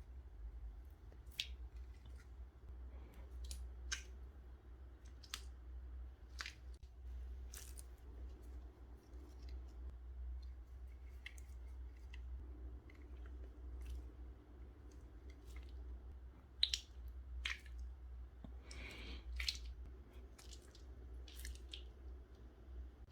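Slime and a squishy mesh ball being squeezed and worked by hand: faint, irregular squishing with scattered small clicks and crackles over a steady low hum.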